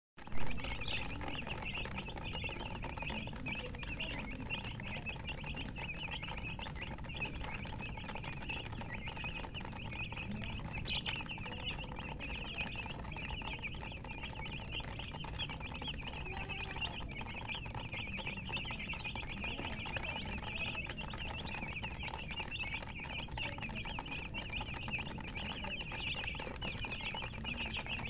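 A flock of domestic chicks peeping continuously, many high chirps overlapping into a dense chorus, over a steady low background rumble.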